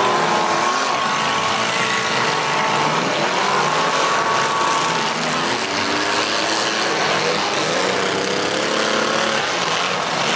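Several demolition derby cars' engines revving at once, their pitches rising and falling and overlapping, over a steady noisy din.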